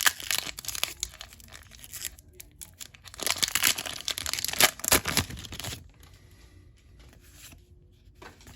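Pokémon booster pack's foil wrapper being torn open and crinkled, loud in two spells in the first six seconds, then faint rustling as the cards are handled.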